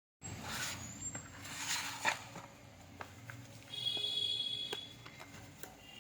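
A box of slate pencils being unpacked and handled: rustling of packaging in the first two seconds, a few light clicks, and a brief high squeak about four seconds in.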